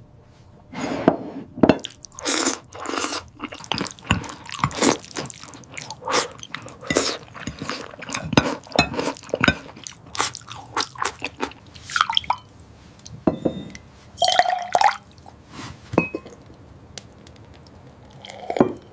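A dog chewing and crunching its food in irregular bites, with pauses between mouthfuls.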